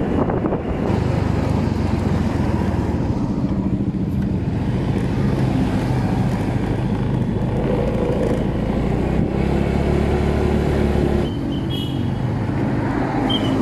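Automatic motor scooter's engine running steadily while being ridden, heard from the rider's seat along with road noise. The engine note drops about eleven seconds in as the scooter slows, and a few short high chirps sound near the end.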